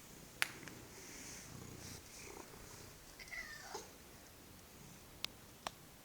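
Domestic cat purring faintly and steadily. Three sharp clicks are heard, one soon after the start and two close together near the end.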